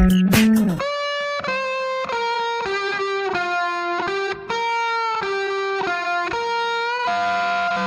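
Background music: an electric guitar playing a melody of held single notes, without drums.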